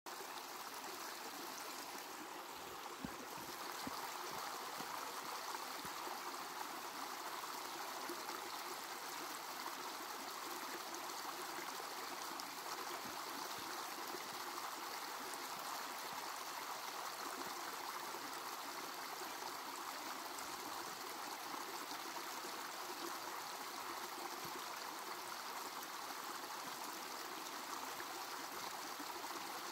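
Shallow rocky creek flowing steadily, water trickling and rushing over stones.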